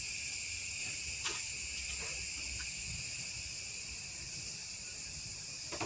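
Steady, high-pitched shrilling of insects in a chorus, over a faint low rumble, with a couple of soft ticks.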